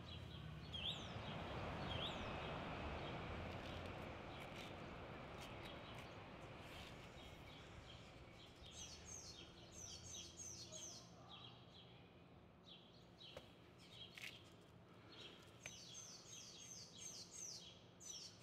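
Faint street ambience. A soft rush of traffic noise swells in the first couple of seconds and dies away, then small birds chirp in quick runs of short, falling, high chirps.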